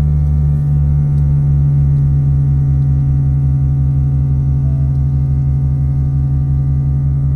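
Train horn air compressor running loud and steady as it refills the horn's air supply: one unbroken hum over a fast, even low pulsing.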